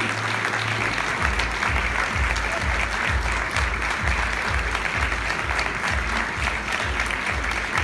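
Audience applauding steadily over music with a steady bass beat of about two beats a second, which comes in about a second in.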